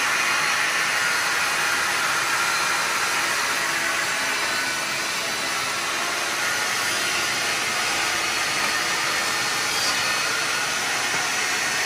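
A steady whir of a motor with rushing air, with no change in pitch or load.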